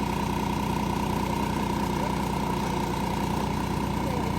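A vehicle engine idling steadily, with a constant hum.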